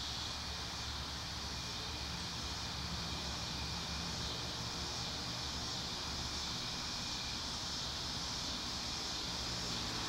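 Steady outdoor background: an even high hiss over a low rumble.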